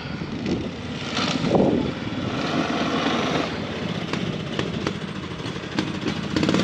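Small engine of a kids' snowmobile running steadily, with a brief louder burst about a second and a half in.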